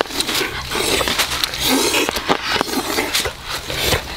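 Cooked crabs in thick sauce being scraped off a pan with a spatula onto a banana leaf: hard shells knocking and clattering, with scraping and wet sauce sounds, many short knocks in an uneven run.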